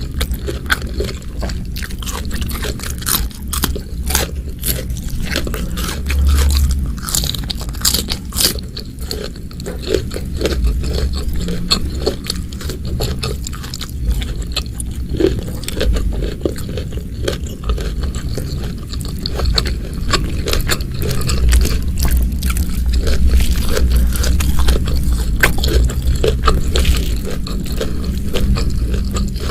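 Close-miked eating sounds: a person chewing and biting crunchy food, with a dense run of small, irregular crunches and wet clicks.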